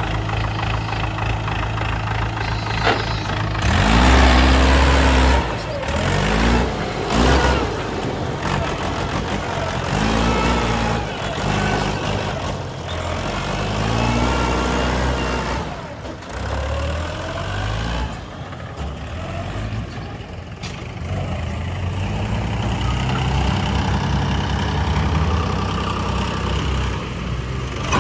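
JCB 3DX backhoe loader's diesel engine running, revving up and dropping back several times as the hydraulics work the bucket, over a steady low engine drone.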